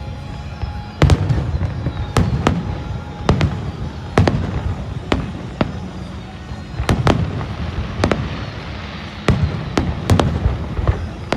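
Fireworks bursting overhead: about a dozen sharp bangs at irregular intervals, roughly one a second, each trailing off in a rumbling echo, over a steady crackling rumble.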